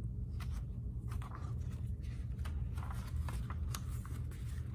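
Paper pages of a picture book rustling with a few light flicks and clicks as the book is handled and a page is turned, over a steady low hum.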